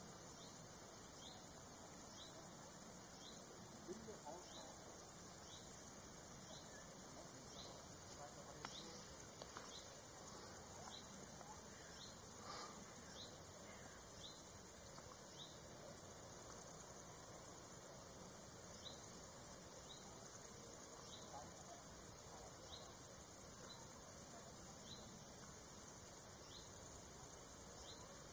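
Crickets chirring: a continuous high-pitched buzz broken by brief gaps every few seconds, with a lower short chirp repeating a little more than once a second.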